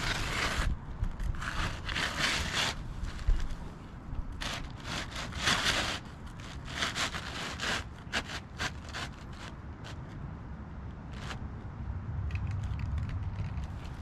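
Asphalt shingle being slid back into place under the course above, its gritty surface scraping and rustling against the neighbouring shingles in three longer strokes, then shorter scrapes and ticks.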